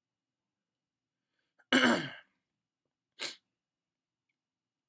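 A man's loud belch from drinking root beer, about half a second long and sliding down in pitch, about 1.7 seconds in. About a second and a half later comes a short breath out.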